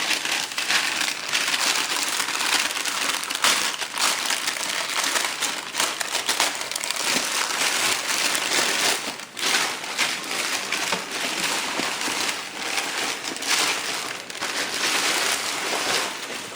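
Shipping package wrapping being crinkled and crumpled by hand as it is torn open, a continuous dense crackle with many small irregular crackles.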